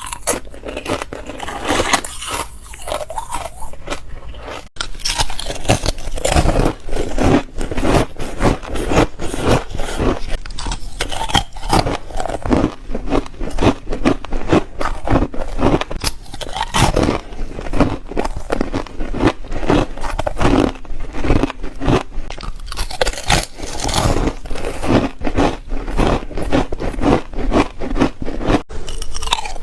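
Close-miked biting and crunching of chip ice, crisp cracks one after another as the ice breaks between the teeth.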